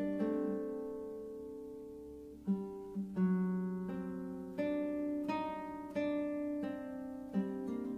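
Background music: a solo plucked string instrument playing a slow melody, single notes plucked and left to ring out.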